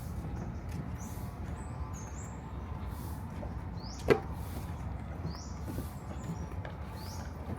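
Park ambience: a steady low hum of distant city traffic under short, high, rising bird chirps that come every second or so. One sharp tap about four seconds in.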